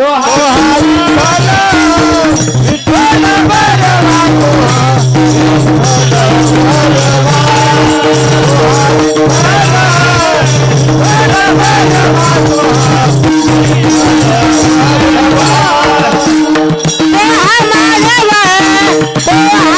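Marathi kirtan music: a voice singing a wavering, ornamented devotional melody over steady held drone notes, with constant rattling percussion strokes.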